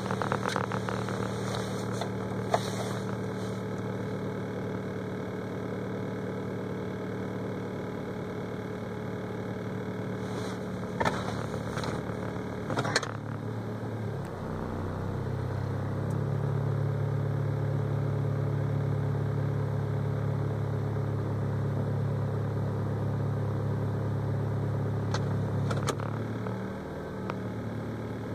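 A 2004 Kia Rio's 1.6-litre four-cylinder engine idling while still cold after a start at about −24 °C, heard from inside the cabin. About halfway through, the idle note shifts and gets a little louder, then settles back near the end, with a few light clicks along the way.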